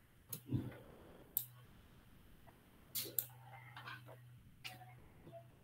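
Computer mouse and keyboard clicks, about half a dozen sharp clicks scattered at irregular intervals, over a faint low hum that comes and goes.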